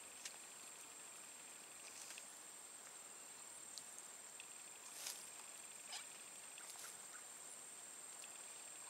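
Near silence: faint outdoor ambience with a steady high-pitched whine and a few faint scattered clicks.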